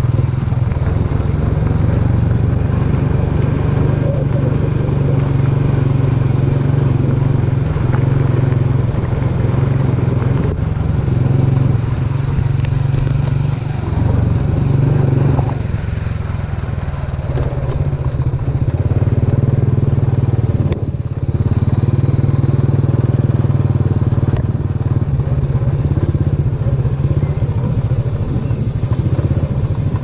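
Motorcycle engine running steadily at low speed along a rough dirt track, its pulsing hum easing briefly a few times. A thin, steady high-pitched tone joins about eleven seconds in.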